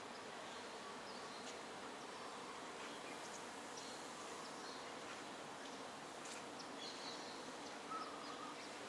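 Quiet outdoor garden ambience: a steady buzzing hum with scattered short, high chirps, more of them in the second half.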